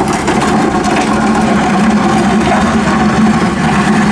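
Diesel engine of a wheeled excavator running steadily under load while its trencher attachment cuts a trench through soil: an even engine note with a rough noise over it.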